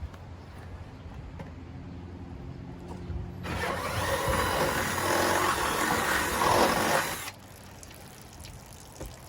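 A steady low machine hum, then, about three and a half seconds in, a loud hissing rush of spraying water that lasts about four seconds and cuts off suddenly.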